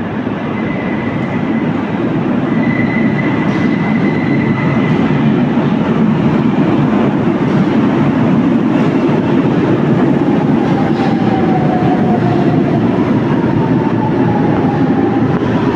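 Lisbon Metro train running in along the platform, a steady loud rumble of wheels on rail. From about ten seconds in, a motor whine falls slowly in pitch as the train slows to stop.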